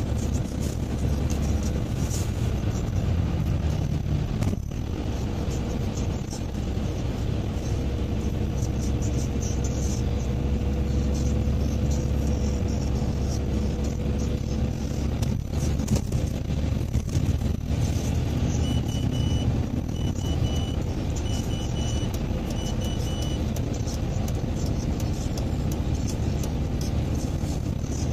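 Car driving on a city road, heard from inside the cabin: steady engine and tyre rumble. A little past the middle come four short, high beeps, evenly spaced.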